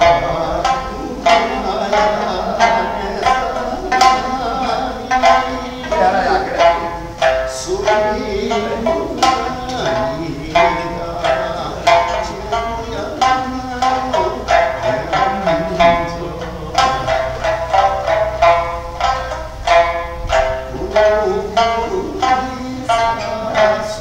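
Okinawan sanshin being plucked in a steady rhythm of bright, ringing notes: folk-style sanshin playing.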